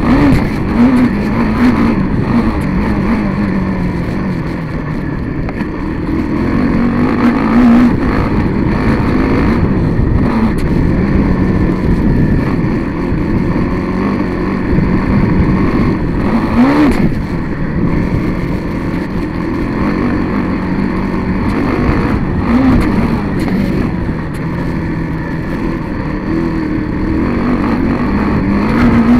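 Dirt bike engine heard from on board, revving up and falling back again and again as the rider accelerates, shifts and rolls off, over a rough rush of noise. About seventeen seconds in, the revs sweep sharply up and drop again.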